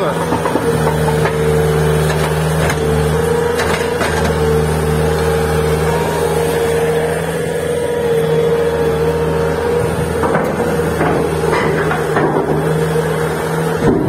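Bobcat skid steer loader's diesel engine running steadily, with a steady higher whine on top and a few brief knocks as it works.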